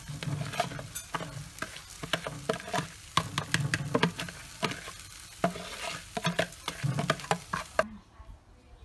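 Metal spatula scraping and clicking against a bowl and a metal wok as cooked rice is scraped out into the pan, over a steady sizzling hiss. The scraping stops abruptly near the end.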